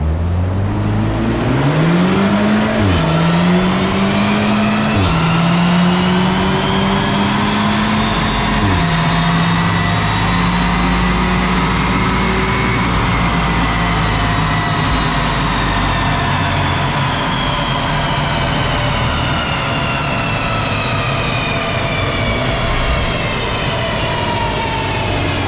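2015 Audi S3's turbocharged 2.0-litre four-cylinder pulling hard through the gears from a standing start on an all-wheel-drive chassis dyno. Its pitch climbs and drops sharply at upshifts about 3, 5 and 9 seconds in. The dyno rollers and drivetrain whine rise to a peak about 13 seconds in, then wind down slowly as the car coasts.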